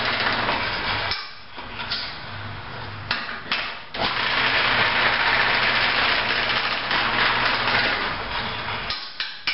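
Wood lathe running with a low motor hum while a long drill bit is pushed into the end of a spinning, soft, wet cedar lamp blank to bore the cord hole. There are a few knocks in the first seconds, then a steady loud hiss of the bit cutting from about four seconds in until it stops shortly before the end.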